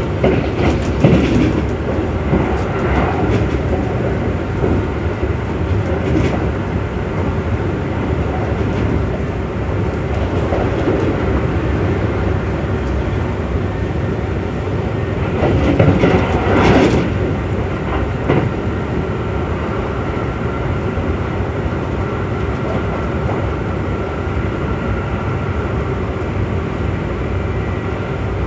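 Kintetsu Urban Liner Plus electric limited express running at speed, heard from inside the car: a steady rumble of wheels on rail, with a brief louder surge about halfway through.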